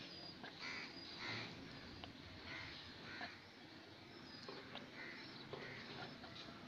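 Faint rustle of cotton thread being drawn through stitches by a crochet hook, with a few light ticks, and bird calls coming and going in the background, a couple at a time.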